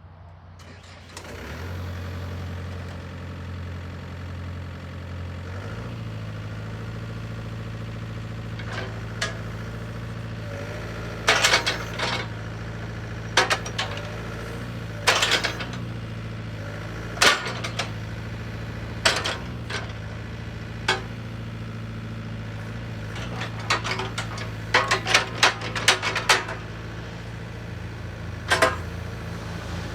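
John Deere 60D mini excavator's diesel engine starting about a second in and running steadily, its speed stepping up at around six seconds. From about ten seconds on, loud sharp metallic clanks come at irregular intervals over the running engine.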